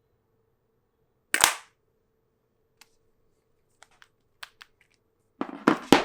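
Sharp clicks and snaps of phone cases being handled: one loud snap about a second and a half in, a few light ticks, then a quick run of loud clicks near the end.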